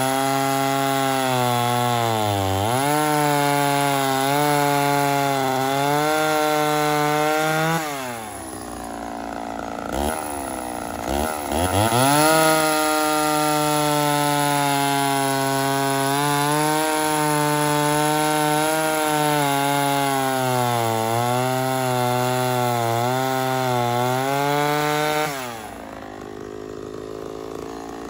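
Mildly ported Homelite Super XL Auto two-stroke chainsaw with a bow bar cutting through log rounds at full throttle, its engine note dipping and recovering as the bar loads up in the wood. About eight seconds in it comes off throttle briefly, revs back up a few seconds later and cuts again, then drops back to idle near the end.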